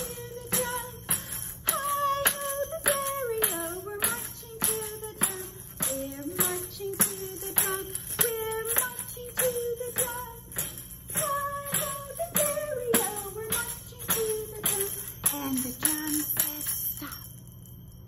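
A tambourine, its drum head tapped with a finger to a steady marching beat of about two taps a second, its jingles ringing on each tap, while a woman sings a children's march song over it. Both stop about a second before the end.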